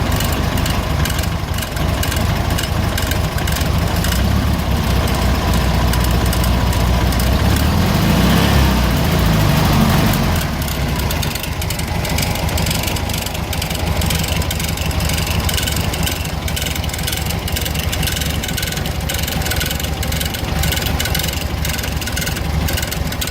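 Air-cooled flat-four engine of a 1970 VW Fusca (Beetle) running at idle with a metallic noise that the owner cannot identify. Around eight seconds in the engine speed rises briefly, then drops back at about ten seconds and settles a little quieter.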